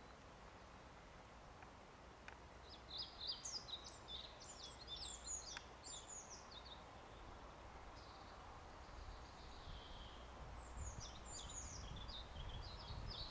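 Faint songbird song: bursts of quick, high twittering phrases about three seconds in and again near the end, over a faint low steady background noise.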